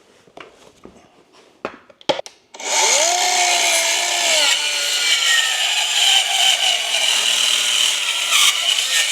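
Bauer 20V cordless 4-1/2-inch circular saw with a Diablo fine-finish blade making a test cut in wood. After a few light clicks, the motor spins up about two and a half seconds in, its pitch dips slightly as the blade bites, and it keeps cutting steadily; it is a smooth cut.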